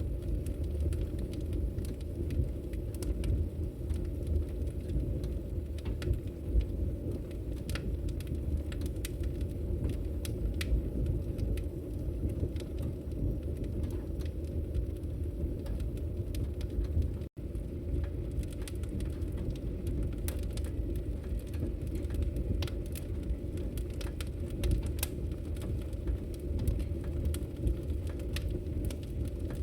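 Wood fire burning in a fireplace: a steady low rumble with frequent small sharp crackles and pops. The sound cuts out for an instant about two-thirds of the way through.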